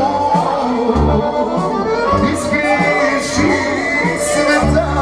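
Live band music in the Balkan folk-pop style: low sustained bass notes with a melody line over them and light cymbal hits.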